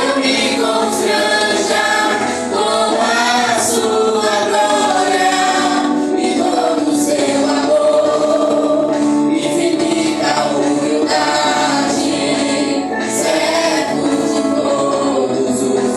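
Christian worship music: a group of voices singing together, held at a steady, loud level.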